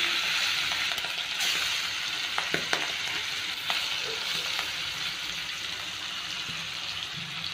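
Masala-coated fish pieces shallow-frying in hot oil in a pan: a steady sizzling hiss that slowly eases, with a few light clicks about two to four seconds in.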